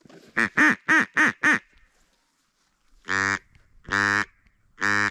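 Duck call blown in mallard-hen quacks: a quick descending run of five quacks, then three long drawn-out quacks about a second apart.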